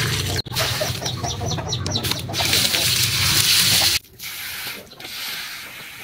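Water spraying from a hose onto plants, a steady hiss that turns quieter about four seconds in.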